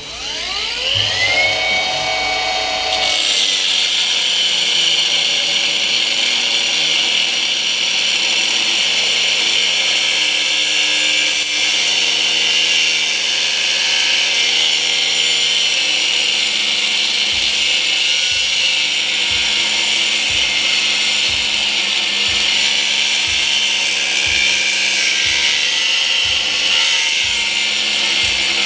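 Battery-powered cutting tool spinning up with a rising whine, then cutting steadily into a cast-aluminum motor mount from about three seconds in.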